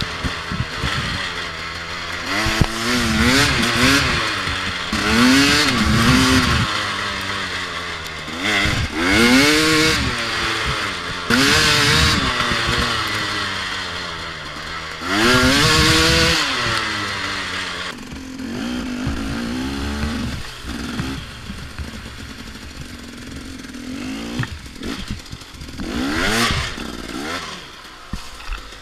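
2014 KTM 250 XC-W two-stroke dirt bike engine being ridden, revving up and falling back again and again as the throttle is worked. From about two-thirds through it runs lower and quieter, with one more rev near the end.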